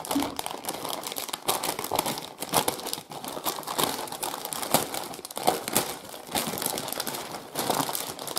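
Packaging crinkling and rustling in irregular bursts as a shipping parcel is unwrapped by hand.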